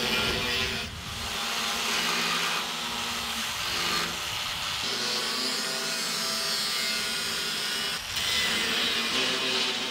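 Angle grinders grinding steel plate: a steady whine with a dense gritty hiss. It dips briefly about a second in and again near eight seconds.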